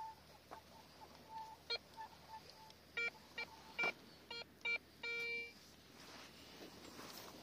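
Garrett metal detector giving target tones over a buried object: faint chirps at first, then about five loud short beeps and one longer beep about five seconds in.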